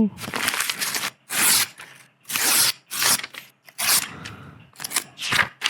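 Paper sound effect: a series of short paper rustles and page-turn swishes, about six in quick succession.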